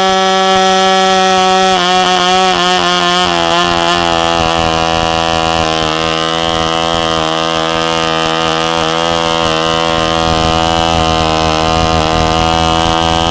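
Frog 500 glow-plug model engine, freshly rebuilt, running steadily. About two seconds in, its note wavers for a couple of seconds before settling again.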